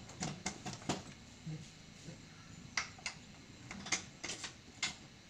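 Sharp, irregular metal clicks and light taps as tools and parts are handled on a Yamaha R15 motorcycle engine during reassembly, about ten in all, some in quick pairs.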